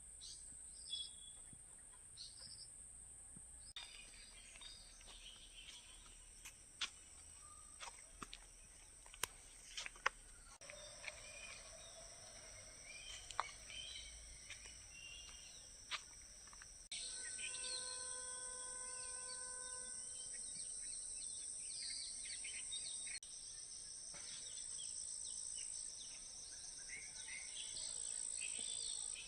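Farm-field ambience: a steady high-pitched insect drone under scattered bird chirps and calls. There are a few sharp clicks in the first half, and a short held tone with overtones comes about two-thirds of the way in.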